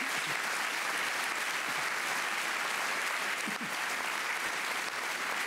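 A large seated audience applauding, steady clapping that keeps going without a break.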